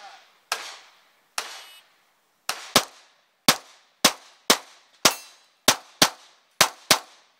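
Glock 19 9mm pistol firing about a dozen rapid shots in quick pairs and singles, each a sharp crack with a short echo. Twice a shot is followed by a brief metallic ring from a steel popper being hit.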